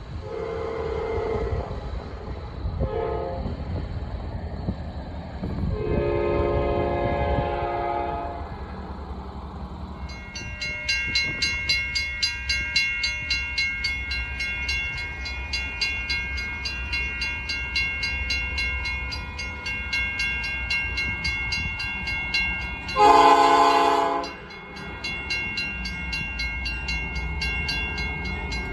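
Norfolk Southern AC44C6M diesel locomotive sounding its Nathan P5 five-chime horn in several blasts: one near the start, a short one, a longer one, and another near the end. The locomotive's engine rumbles underneath, and from about ten seconds in a bell rings steadily.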